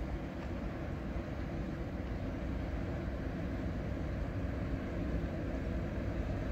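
Diesel engine of a long inland cargo barge passing on the river, a steady low drone.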